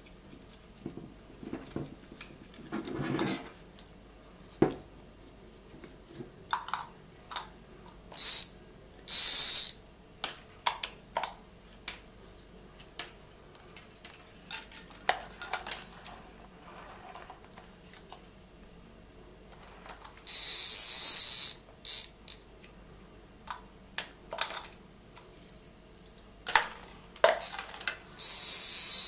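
Small metal parts clicking and clinking as the wrist-mounted reel brace of a fishing slingshot and its small fittings are handled and adjusted on a wooden table. Four loud bursts of high, hiss-like scraping are the loudest sounds, each up to about a second and a half long, the longest about two-thirds of the way through.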